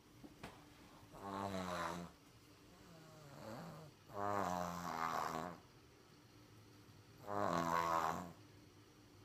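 Heavy snoring from a sleeper who is sick: three loud, rattling snores about three seconds apart, with a fainter one between the first two.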